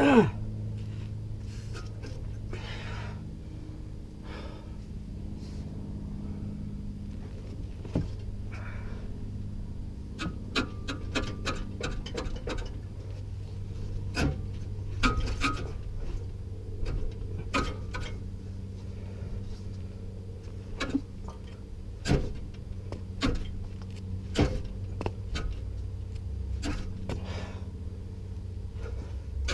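Scattered metal clinks and knocks from the stock exhaust of a 2016 Mustang GT as the catback pipes are worked and pulled at the joint with the stock catalytic converters, with a quick run of clinks about ten to twelve seconds in. Hard breathing from the straining mechanic and a steady low hum run underneath.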